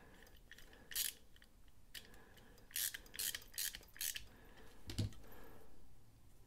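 Small screwdriver turning a screw in a titanium folding knife's frame: short metallic scraping clicks about a second in and again several times between three and four seconds, then a single low knock about five seconds in.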